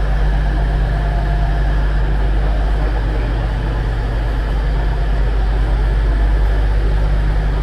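Diesel passenger trains idling at the platform, a steady low engine drone with no change in pitch.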